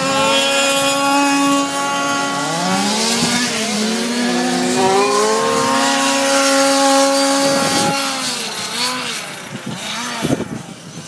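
Motors of several radio-controlled model race cars on an ice track, their overlapping whines rising and falling in pitch as they speed up and slow through the turns; the sound fades near the end.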